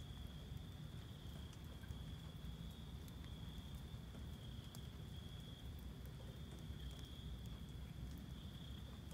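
Backyard rain shower: scattered drops ticking and pattering over a steady low rumble, with a continuous high insect trill.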